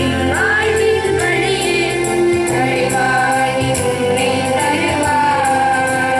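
A group of women singing a song together into a microphone, sustained sung notes over a steady beat.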